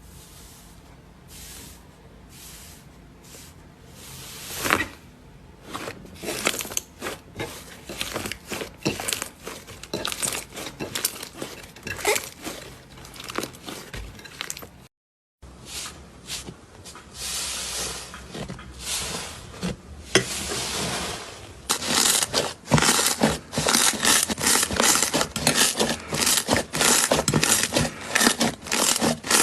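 Slime being squeezed and worked by hand close to the microphone, with many small sharp pops and crackles. The sound cuts out briefly about halfway through, then the crackling comes back denser and louder.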